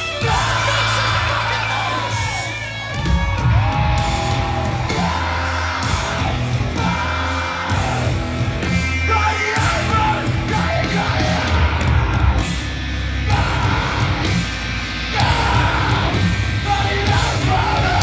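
A live rock band plays loudly through a concert PA, heard from within the crowd. It has a heavy, booming low end, and a vocalist yells and sings over it in long gliding lines.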